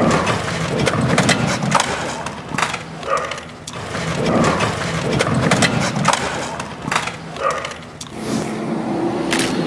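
A moving pickup truck with rattling road noise and frequent, irregular knocks and clatter.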